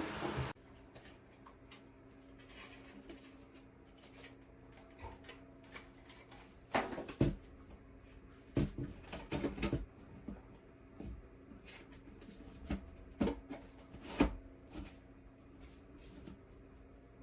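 A small electric wall-mount fan's steady rush of air cuts off suddenly about half a second in. After that come scattered light knocks and clicks of handling over a faint steady hum.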